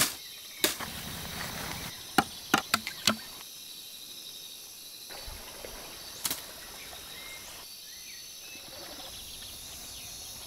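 Machete chopping into bamboo stems: about six sharp knocks within the first three seconds and one more about six seconds in. Behind them runs a steady high drone of forest insects.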